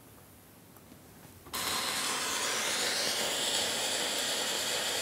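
Playback of a phonograph cylinder transfer with its two channels out of phase: after a brief quiet, a loud, steady hiss of surface noise starts suddenly about one and a half seconds in. The recorded voice is cancelled to almost inaudible, leaving mostly noise.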